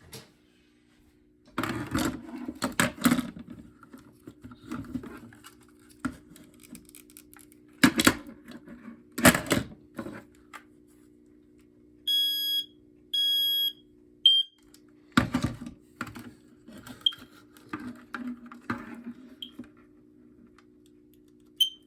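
Knocks and clatter from handling a smoke alarm, the loudest sounds, then about twelve seconds in the FireX smoke alarm's piezo horn sounds two high beeps of under a second each and a short chirp, with fainter chirps after. This is a horn test to find the unit with a weak, faulty horn. A steady low hum runs under most of it.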